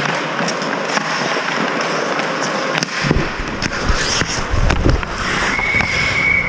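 Ice hockey play around the net: skates scraping the ice and sharp clacks of sticks and puck. About five seconds in, a steady high whistle tone starts and holds, stopping play.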